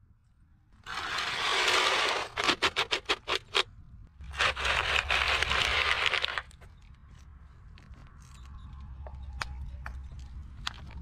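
Car tyre rolling over a cream cake on a plastic platter, crushing it: a loud scraping, crackling noise, then a quick run of about ten sharp cracks as the plastic platter gives way, then a second stretch of scraping crunch. A low rumble sits underneath from about halfway through, with a few scattered clicks near the end.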